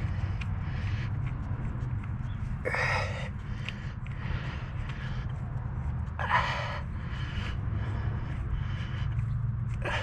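A man's heavy breaths every three to four seconds, gasping exhalations of effort as he strains at a stuck engine knock sensor, over a steady low hum.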